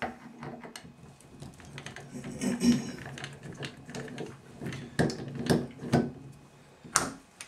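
Phillips screwdriver turning out the handle screw of an older Moen single-lever shower valve, with scattered metal-and-plastic clicks and light scraping. A few sharper clicks come near the end as the clear plastic handle is worked off the valve stem.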